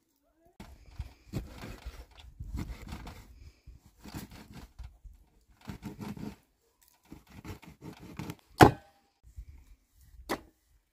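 Irregular scraping and rustling handling noises, then a sharp knock about eight and a half seconds in and a lighter knock near the end.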